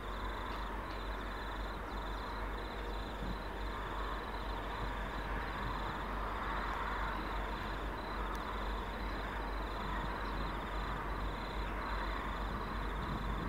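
Distant diesel locomotives of an approaching freight train, a G-class and an XR-class, giving a steady low rumble that grows a little louder, with insects trilling in an even, fast pulse over it.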